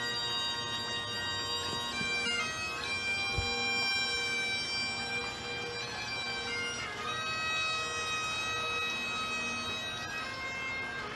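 Bagpipes playing a melody of long held notes over their steady drones, with a single brief low thump about three seconds in.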